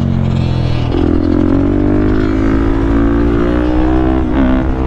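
Single-cylinder four-stroke engine of a Suzuki DR-Z400SM supermoto under way: its pitch falls off as the throttle eases, then about a second in it picks up and climbs steadily for about three seconds as the bike pulls, with a brief wobble near the end. Wind rushes over the microphone.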